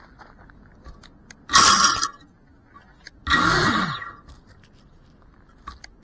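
FPV quadcopter's brushless motors and propellers spinning up in short bursts while the drone sits on the ground: two spin-ups about a second and a half and three and a half seconds in, each gliding in pitch, and a third starting at the very end.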